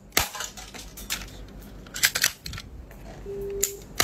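Metal toy ball-bullet pistol being fired and handled: a series of sharp clicks, with a quick cluster about two seconds in. A short steady tone sounds near the end.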